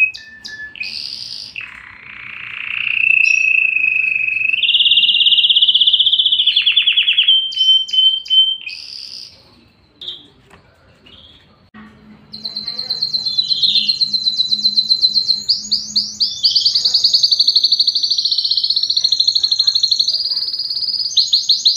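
Domestic canary singing: whistled phrases and fast trills, a short pause near the middle, then long, very rapid rolling trills.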